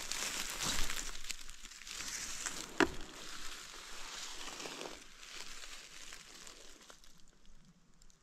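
Dry leaf litter and pine needles rustling and crunching as a shot gray squirrel is picked up off the forest floor, with one sharp click about three seconds in. The rustling dies down after about five seconds.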